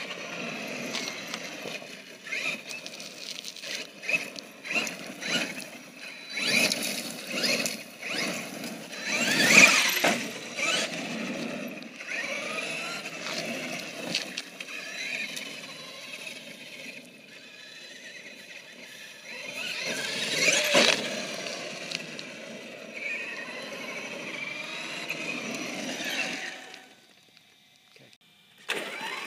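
Traxxas X-Maxx electric RC monster truck driving on gravel: its brushless motor and drivetrain whine rising and falling with the throttle over the noise of its tyres on the gravel. It is loudest on the hard bursts around 10 s and 21 s and goes nearly quiet near the end before starting up again.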